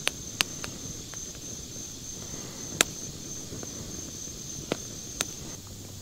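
Wood campfire crackling with about five sharp pops, the loudest nearly three seconds in, over a steady high trill of insects that stops near the end.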